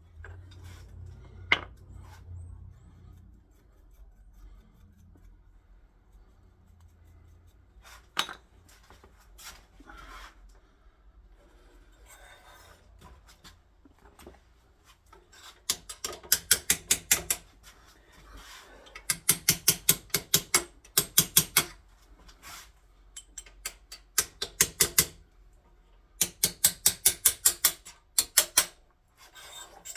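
Hand tool work while fitting a barrel band: a few scattered knocks, then from about halfway through, four runs of quick, sharp file strokes, about five a second, each run two to three seconds long.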